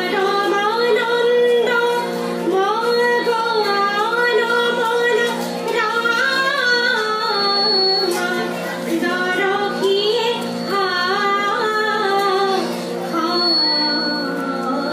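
A woman singing a melodic song to her own harmonium accompaniment, the harmonium holding steady notes beneath the voice.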